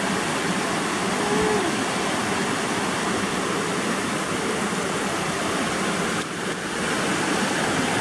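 Small waterfall on a mountain river rushing steadily through a rock chute into a pool, a continuous even rush of white water.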